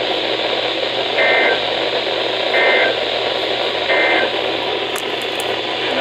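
Weather radio speaker hissing with receiver static, broken by three short two-tone data bursts about a second and a half apart: the EAS/SAME end-of-message code that closes a NOAA Weather Radio Required Weekly Test. A few faint clicks near the end as the radio's buttons are pressed.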